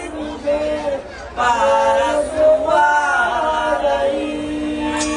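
Terno de Reis folk group singing unaccompanied in a chant-like style, several voices together, the drum and tambourine silent. Two sung phrases with a short break about a second in; the last note is held.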